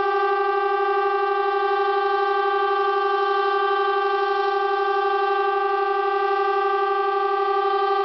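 Civil defence air raid siren sounding the All Clear signal: one long, unbroken tone held at a steady pitch, meaning the danger is over.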